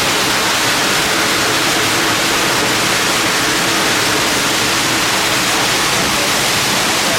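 Waterfall rushing steadily: a dense, even wash of falling water with no breaks.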